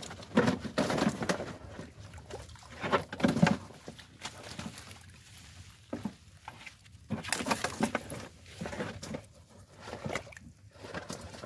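Hands groping through mud and shallow water among water plant stems: irregular splashes, squelches and rustles, loudest in the first few seconds.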